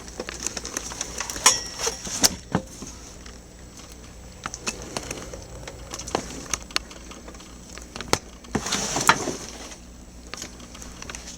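Scattered sharp clicks and knocks with a brief rustle about nine seconds in, over a faint steady low hum: objects being handled.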